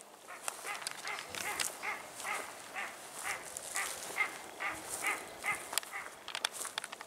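Northern shoveler ducks calling, a steady series of short quacks about two or three a second.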